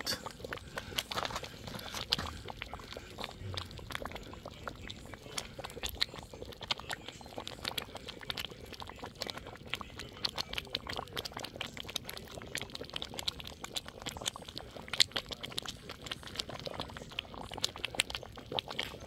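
Pot of coconut saltfish rundown cooking at a boil, giving a dense, irregular crackle of bubbling and spitting over a faint hiss.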